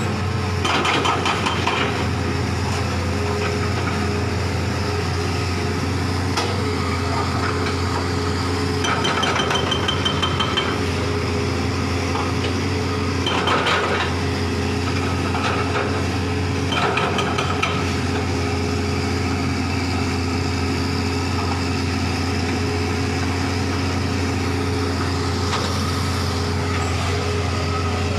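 Hitachi hydraulic excavator's diesel engine running steadily, with several short bursts of rapid hammering from its hydraulic breaker, the first about a second in and others spread through the middle.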